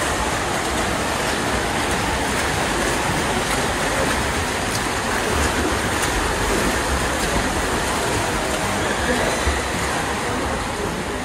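Steady wash of pool noise during a swimming race: water churned and splashed by swimmers, with voices mixed in.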